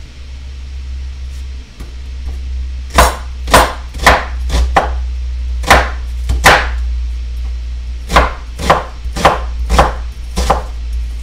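Kitchen knife dicing an onion on a wooden cutting board: a run of sharp, irregular chopping strikes, around fifteen, starting about three seconds in.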